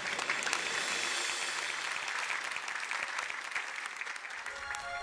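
Studio audience applauding, a dense steady patter of many hands clapping.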